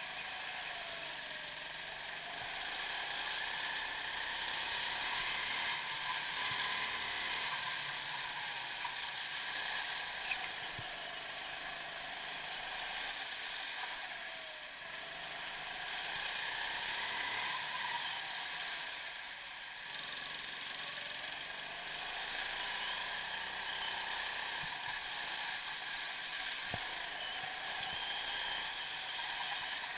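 Go-kart motor running as the kart laps a track, its pitch repeatedly rising and falling with speed, over a steady mechanical rattle. A single sharp knock about ten seconds in.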